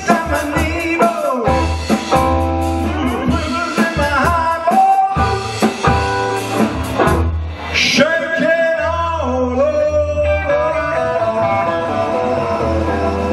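Live rock and roll band playing: a male singer over electric guitars and drums.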